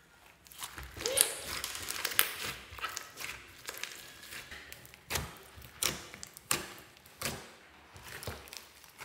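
Slime being squeezed and kneaded by hand: wet squelching with sharp sticky clicks and pops, dense at first, then a run of separate pops roughly every half to one second in the second half.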